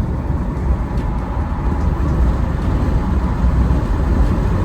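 BMW 3 Series with a B46 2.0-litre turbocharged four-cylinder, its dual exhaust heard with the windows down while driving: a deep rumble mixed with road and wind noise, growing gradually louder.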